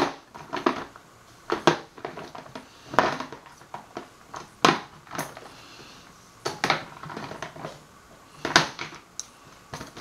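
Small jars and containers being handled and set down on a work surface: irregular clicks and knocks every second or two, with a few short scuffles in between.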